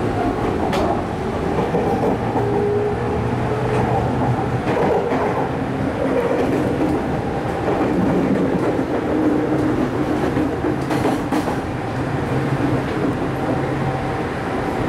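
JR East 205 series electric commuter train running, heard from inside the car: the traction motors hum in shifting tones over steady wheel and rail noise. A few clicks come from the rail joints, the clearest about a second in and twice around eleven seconds.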